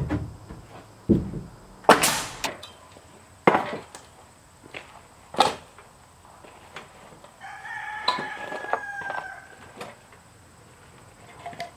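Pneumatic coil siding nailer firing four sharp shots into rough-sawn boards over the first six seconds, the loudest with a short hiss of air. Then a rooster crows once, for under two seconds, about seven and a half seconds in.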